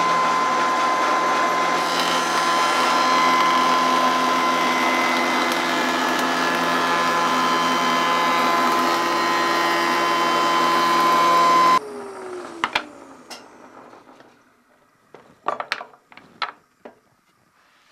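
Stationary wood shaper running with a bearing-guided cutter, trimming a curved glued-up edge flush to a template: a loud, steady machine noise with a high steady whine. It stops abruptly about twelve seconds in, followed by a falling hum as the spindle winds down and a few knocks near the end.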